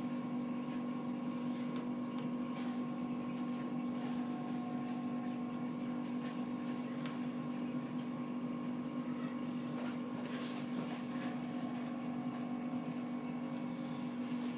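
Tool post grinder on a lathe left running, a steady hum with overtones over an even hiss, with a few faint small ticks about ten seconds in.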